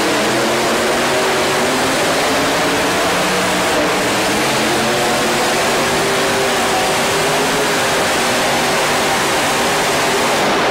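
Multi-engine modified pulling tractor at full throttle hauling a weight-transfer sled, a loud, dense engine roar whose pitch climbs steadily as it goes down the track.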